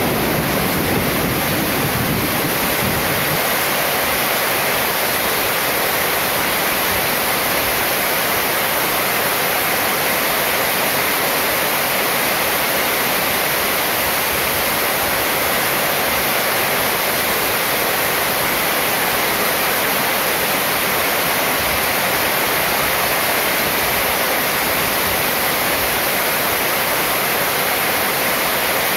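Heavy rain falling steadily on a corrugated metal roof and pouring off its edge, an even, dense hiss. A low rumble under it dies away in the first few seconds.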